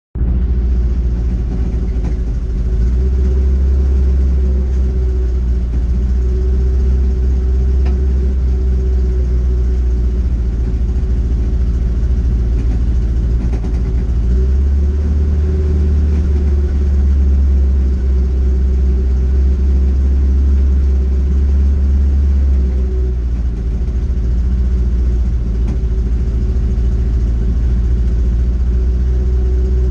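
Datsun Fairlady 2000 (SR311) four-cylinder engine idling steadily: a deep, even hum whose note shifts slightly a few times.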